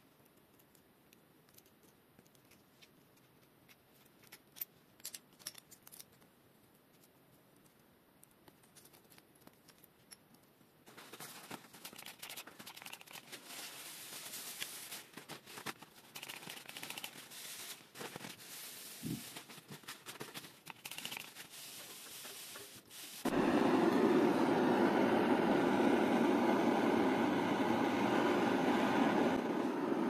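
Faint clicks of small metal brake-caliper parts being handled, then a paper wipe rubbing with short spritzes from a spray bottle. About three-quarters of the way through, a handheld butane gas torch lights suddenly and burns with a steady hiss, the loudest sound.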